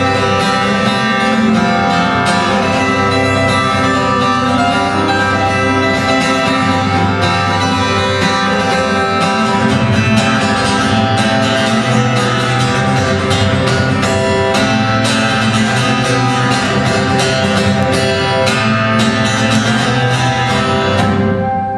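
Solo acoustic guitar playing a continuous instrumental piece, a steady stream of plucked notes.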